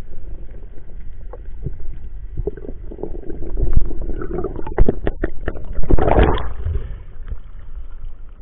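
Muffled water noise picked up by a camera underwater as the freediver swims up toward the surface: a low rumble with a run of sharp knocks and clicks, then a loud rush of water about six seconds in.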